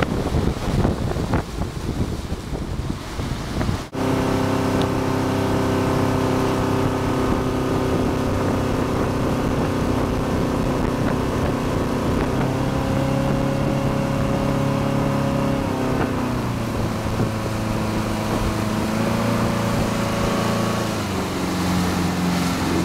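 Motorboat engine running at speed while towing an inner tube, its pitch stepping and dipping a few times. For the first few seconds wind buffets the microphone over the rush of the wake.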